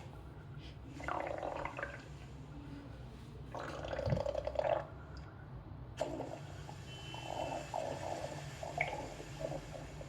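Stomach rumbling: several bursts of watery gurgling over a steady low hum. The longest run of gurgles starts about six seconds in.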